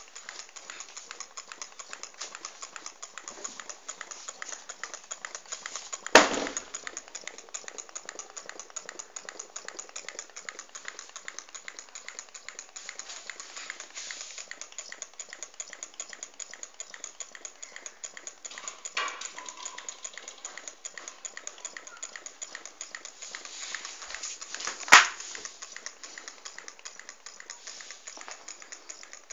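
Homemade gamma-type Stirling engine running, its mechanism giving a rapid, even ticking. Two sharp knocks cut through it, about six seconds in and near the end.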